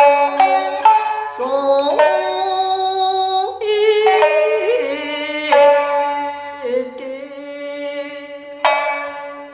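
Jiuta-style shamisen being plucked: a quick run of about five notes, then slower single notes with pitch slides between them, and a final struck note near the end that rings out and fades.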